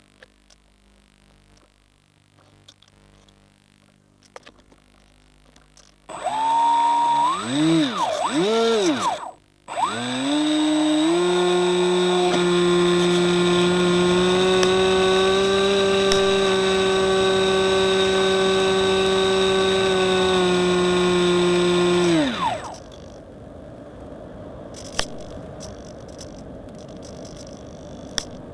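Electric motor of a Reely Phönix RC motor glider whining. It is blipped up and down a few times about six seconds in, then held steady at high throttle for about twelve seconds before winding down. Afterwards a steady rushing noise with a few clicks.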